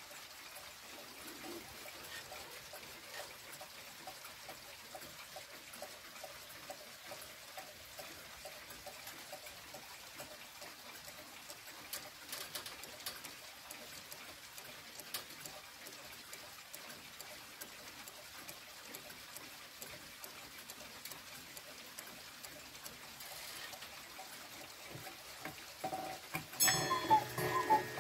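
Children's pendulum cuckoo clock ticking quietly and steadily. Near the end the cuckoo mechanism sets off and the cuckoo call sounds again and again, much louder than the ticking.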